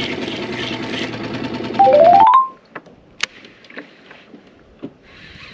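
A small boat outboard motor running steadily. About two seconds in, a quick rising run of electronic beeps plays, and the motor sound cuts off abruptly. What remains is quiet with scattered small clicks.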